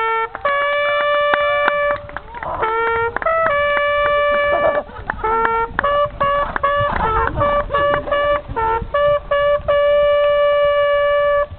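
Hunting horn blowing a signal call: long held notes alternating with quick short ones on two pitches, some of the lower notes sliding up into pitch.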